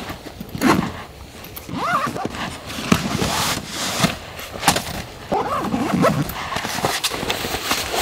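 Footsteps on snow and camp gear being handled: rustling nylon pouches set on a metal folding rack, with scattered sharp knocks and a few soft thuds.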